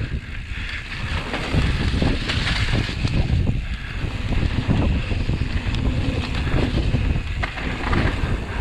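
Wind buffeting the microphone over the rumble and clatter of a mountain bike riding fast down a dirt trail, with many small knocks from the bike over the bumps.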